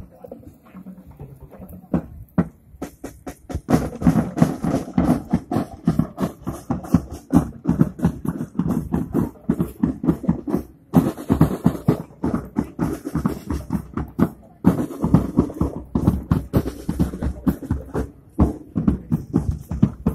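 Music with a steady drum beat that comes in after the first couple of seconds and grows louder at about four seconds.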